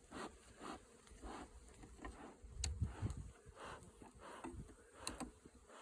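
Honeybees buzzing around an opened hive, with a few sharp clicks from hive equipment being handled.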